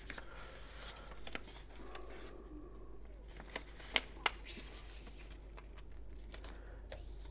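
Black paper record sleeves rustling and sliding softly as a grey vinyl disc is handled, with a few sharp clicks, the two loudest close together about four seconds in.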